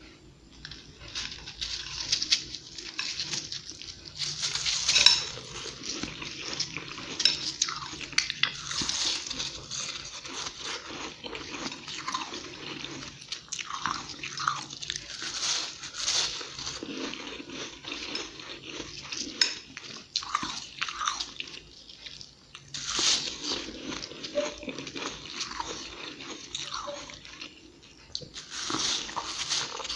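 Fluffy, flaky frost ice being bitten and chewed: many crisp crunches in quick runs, with short pauses between bites.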